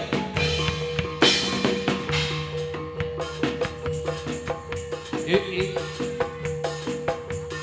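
Gedruk dance music: a Javanese percussion ensemble playing a quick, even beat of drum and struck metal strokes over a held ringing tone, with jingling rattles.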